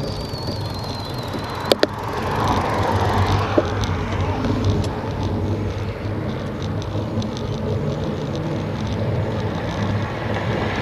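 Road bicycle riding slowly on a concrete road, with steady wind and tyre noise on the bike-mounted camera's microphone. A faint high whistle falls slightly in pitch at the start, and two sharp clicks come close together about two seconds in.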